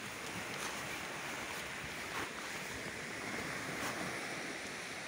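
Small sea waves washing onto a sandy beach: a steady hiss of surf.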